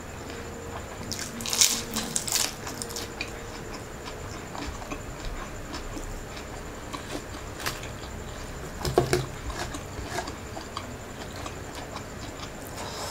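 Close-miked eating: crisp bites into fried lumpia shanghai spring rolls and wet, smacking chewing. The loudest crunches come in two clusters, about two seconds in and again around nine seconds.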